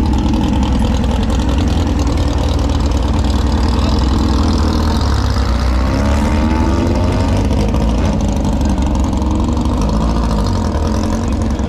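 A vehicle engine idling steadily, with a second engine note briefly rising and falling about halfway through.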